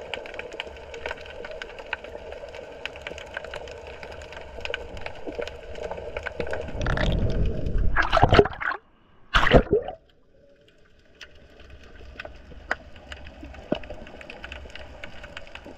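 Underwater sound through a GoPro in its housing: a steady watery hiss with many small clicks. About seven seconds in come two loud rushing, gurgling surges of water, the second cutting off abruptly near ten seconds, after which it is quieter.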